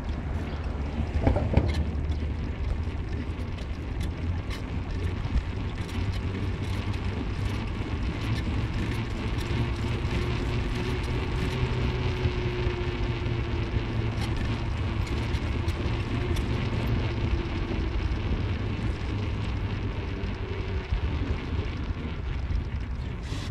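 A car driving: steady road and engine noise with a low drone, and a faint steady whine that comes in about ten seconds in and fades out a few seconds before the end.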